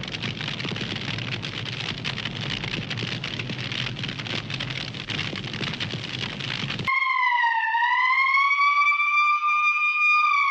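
A rushing, crackling noise stops abruptly about seven seconds in. A cartoon siren sound effect follows, a single wailing tone that dips, climbs and then slowly sinks.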